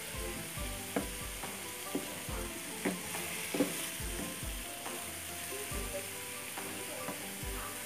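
Onion paste sizzling in oil and ghee in a non-stick frying pan, stirred and scraped with a wooden slotted spatula, with a few sharp clicks of the spatula against the pan. The blended onion's juice is cooking off before it browns.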